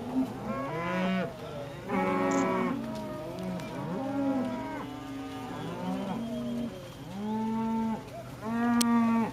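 A herd of Hereford cattle mooing and bawling, many calls overlapping one another. The loudest calls come about two seconds in and near the end.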